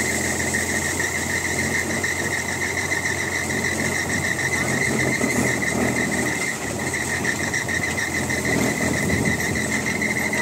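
The diesel engine of a loaded M35A2 6x6 cargo truck idling steadily, with a steady high whine over it.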